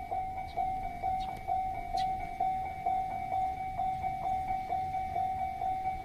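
Japanese railway level-crossing alarm ringing, its electronic bell striking one steady tone about twice a second: the crossing is closed, warning of an approaching train.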